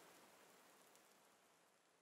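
Near silence: faint recording hiss after the narration ends.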